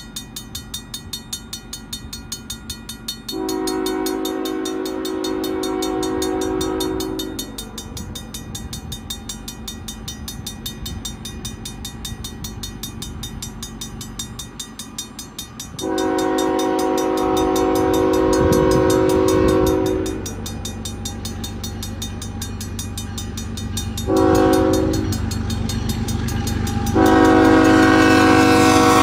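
Level-crossing bell ringing steadily at about two strikes a second while an approaching CN freight's lead GE ES44AC locomotive sounds its multi-chime horn in the grade-crossing pattern of long, long, short, long. The last blast is still sounding as the locomotives rumble up to the crossing.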